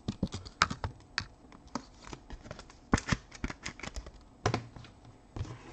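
A run of irregular light clicks and taps from hands handling small hard objects, with a few sharper ones about half a second, three seconds and four and a half seconds in.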